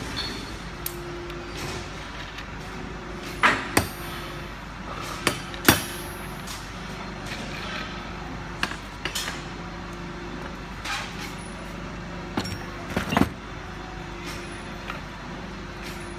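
Steel forming-head parts knocking and clinking as they are fitted together by hand: a dozen or so separate metal knocks, the loudest pair about three and a half seconds in and another near thirteen seconds. A steady machine hum runs underneath.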